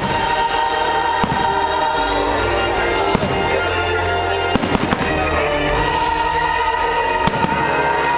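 Fireworks shells bursting with sharp bangs, about a second in, near three seconds, in a quick cluster around the middle and again near the end, over a show soundtrack of music with a choir singing.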